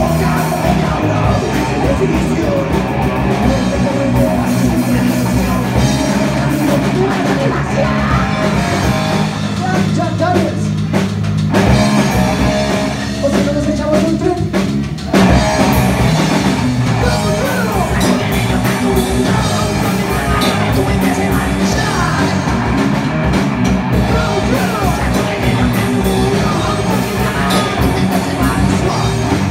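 A rock band playing live and loud: distorted electric guitars through amplifiers over a driving drum kit. About eleven seconds in, the drums drop away and gliding guitar notes carry on alone. The full band comes back in hard around fifteen seconds in.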